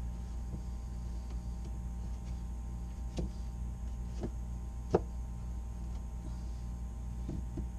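A few short plastic clicks and taps, the loudest about five seconds in, as a plastic duckbill valve housing is screwed by hand onto a VacuFlush vacuum tank, over a steady low hum.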